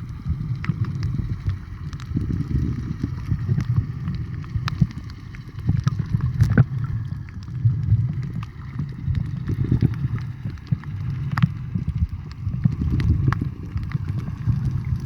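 Water sloshing and moving around an underwater camera: a muffled low rush that swells and fades every two seconds or so, with scattered sharp clicks and ticks over it.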